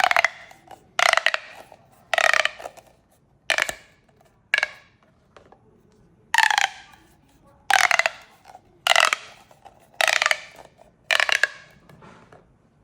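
Plastic pop tubes being pulled and pushed, each stroke giving a quick run of crackling ridge clicks with a hollow ringing tone. There are about ten strokes, a little over a second apart, with a longer pause near the middle.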